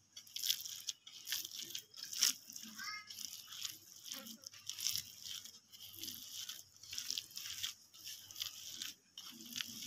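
Fingers kneading and squishing a moist, spiced kofta mixture against a glazed clay plate: an irregular run of soft crunching, squishing and scraping strokes, several a second.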